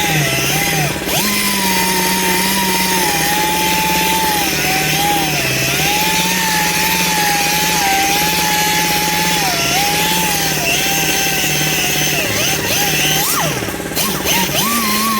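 Mini dual-action sander running while wet-sanding an aluminum wheel with 600-grit paper, a continuous motor whine whose pitch wavers and dips briefly several times as it is worked against the wheel.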